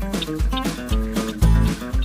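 Background music with a steady beat, a moving bass line and pitched instrument notes.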